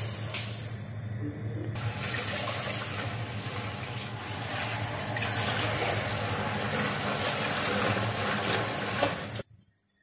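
Water pouring in a steady stream into a steel saucepan holding sugar, stopping abruptly near the end.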